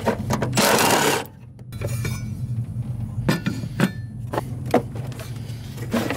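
Cordless drill-driver spinning a bolt out of a fastened brace for about a second. Then come several sharp clicks and knocks of metal and plastic parts being lifted off and handled.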